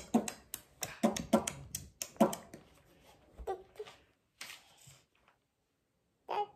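A toddler's short giggles and squeals, coming quickly in the first couple of seconds, then thinning out, with one more brief burst near the end.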